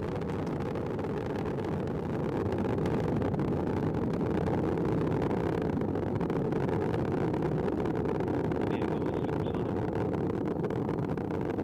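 Falcon 9 first stage's nine Merlin engines in powered flight about a minute after liftoff: a steady, deep rumble without a clear pitch, a little louder from about two seconds in.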